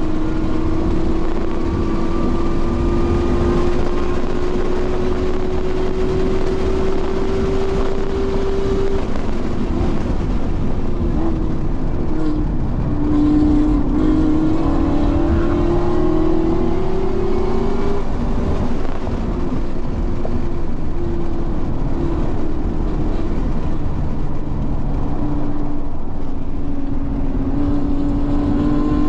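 Car engine under hard throttle at speed on a race track, heard on board over heavy road and wind rumble. The engine note climbs slowly in pitch on long pulls and drops back about nine seconds in and again around eighteen seconds.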